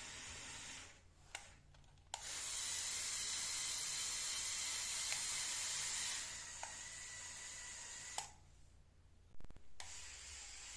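Small electric motors of a LEGO Technic Power Functions model whirring with a hissy, faintly whining sound, stopping and starting again with small clicks, twice; loudest from about two to six seconds in.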